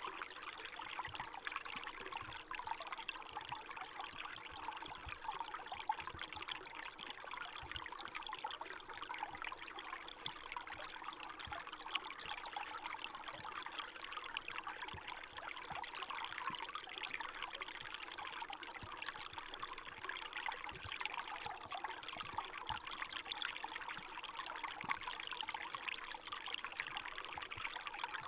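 Small forest stream in winter, water running and trickling steadily.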